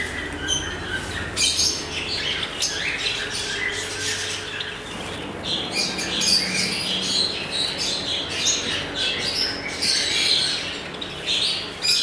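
Many caged birds chirping and squawking at once, a dense, unbroken run of short overlapping calls.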